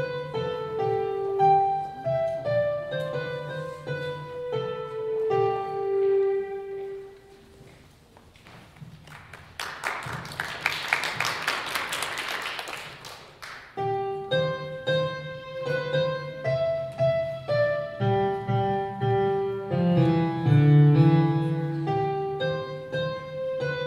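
Portable electronic keyboard played in a piano voice: a slow melody of held notes over low chords. About halfway through the playing drops away, and a few seconds of dense, hissy clatter follow before the melody and chords return.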